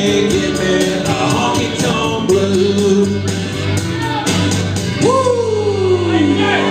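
A man singing into a microphone over backing music with a steady beat; about five seconds in he holds one long note that slides down in pitch.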